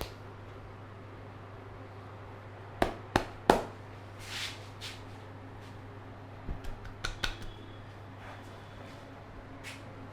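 Sharp hand strikes of a head massage: three quick ones a little under three seconds in, then a rapid cluster of five or six about six and a half seconds in, over a steady low hum.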